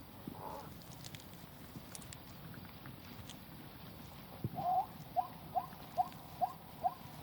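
An animal calling: a run of short, rising chirps, about two and a half a second, starting about halfway through, over faint scattered clicks.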